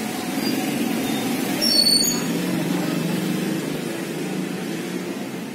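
Steady low background rumble like road traffic, swelling slightly about two seconds in, with a brief cluster of high chirps at that point.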